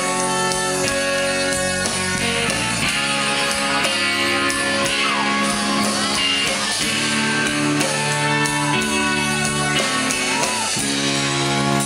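Live rock band playing an instrumental break at full volume: electric guitar, bass, keyboard and drums, with a few sliding notes over the chords.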